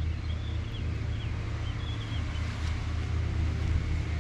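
Garden ambience: a steady low rumble with faint, short, high bird chirps in the first couple of seconds.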